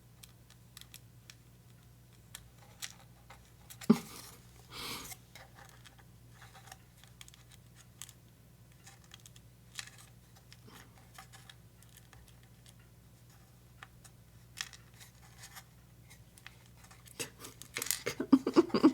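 Hands working with small craft-kit parts on a table: scattered light clicks and taps, a sharper click about four seconds in followed by a brief scrape, and a quick flurry of clicking and rustling near the end.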